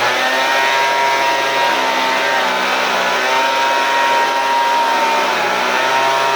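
Troy-Bilt weed eater's two-stroke engine running steadily at high revs, its pitch dipping briefly a couple of times. It is running at full power without bogging down, its carburettor mixture screw having been turned half a turn counterclockwise.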